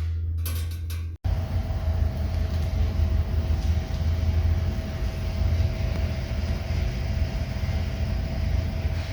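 Background music cuts off abruptly about a second in, followed by a steady mechanical rumble with a faint constant hum, typical of shop machinery running.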